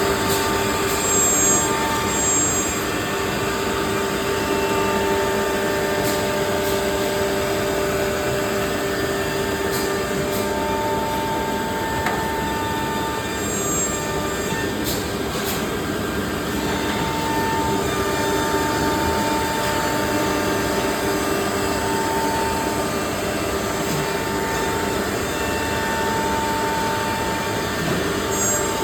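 Four-head CNC router running: a steady mechanical noise with a held whine from the spindles, and a higher tone that comes and goes every few seconds.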